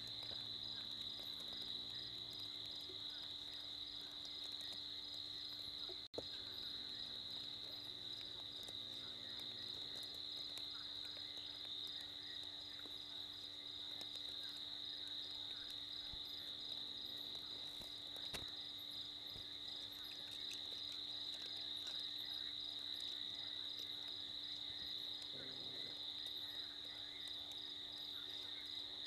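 Night chorus of crickets trilling steadily on one high pitch, under a faint steady low hum. The sound cuts out for an instant about six seconds in.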